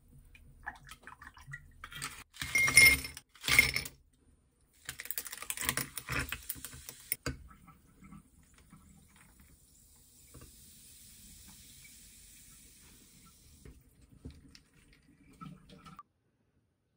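Ice cubes dropped clattering into a tall glass, two loud bursts about two and three and a half seconds in, then a sparkling drink poured over the ice, splashing and then fizzing faintly.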